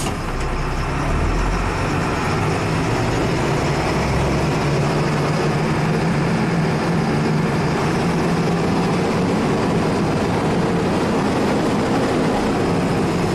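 Military LMTV 4x4 truck's diesel engine running steadily under way, heard from inside the cab, with a constant low drone and the rattle and road noise of the cab.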